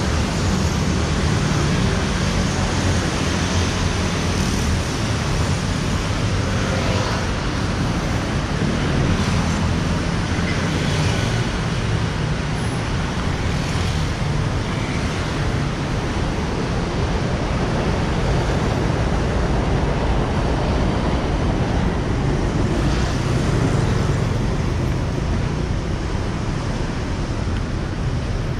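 Continuous traffic noise from a busy city road: a steady rumble of passing vehicles.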